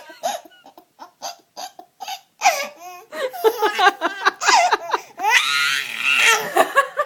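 A baby laughing in a string of short giggly bursts, with a longer run of laughter about five to six seconds in.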